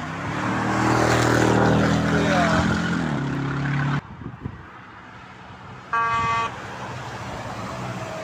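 A passing vehicle sounding a long, loud multi-tone horn over tyre and road noise, the pitch dropping as it goes by, cut off abruptly about four seconds in. About two seconds later comes a single short horn beep.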